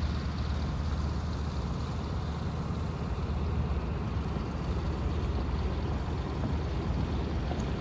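A de Havilland Beaver floatplane's radial engine running at low taxiing power as it moves across the water: a steady low drone.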